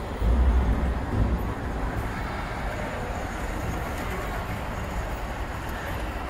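Standard Gauge tinplate electric model train running past on three-rail track: a loud low rumble during the first second and a half as the locomotive passes close, then a steady running noise as the cars roll by.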